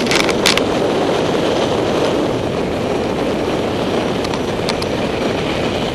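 Wind rushing over the camera microphone of a paraglider in flight: a steady, loud rush of air. A few sharp clicks come in the first half second.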